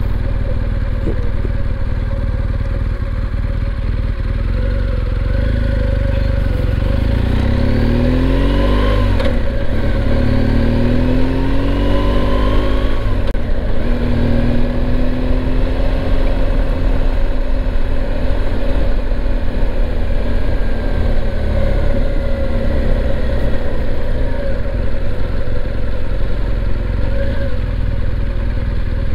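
BMW R1200GSA's boxer-twin engine heard from the rider's seat as the bike pulls away at town speed, rising in pitch through the gears twice about a third of the way in, then running steady as it cruises.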